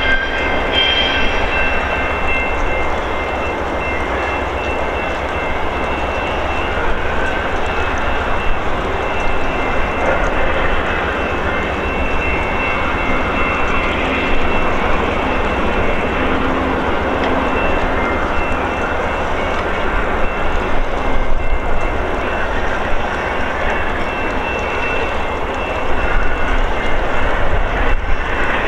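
VIA Rail passenger train of LRC coaches pulling away from the station: a steady rumble of wheels on rail with a thin high ringing tone over it, growing a little louder near the end.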